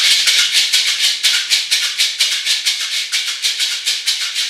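A pair of red maracas shaken with a soft, loose motion: a continuous, smeared rattle of the pebbles inside, with no crisp accents. The loose movement lets the pebbles wander inside the shells, so the sound comes out imprecise rather than defined.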